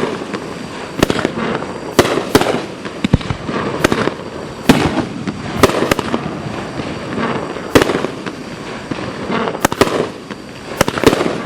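Consumer aerial fireworks going off: about a dozen sharp bangs at uneven intervals, with crackling and hissing between them.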